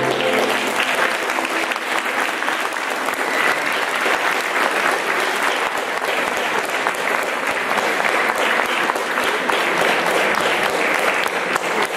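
Audience applauding steadily; the last held chord of the music fades out about half a second in.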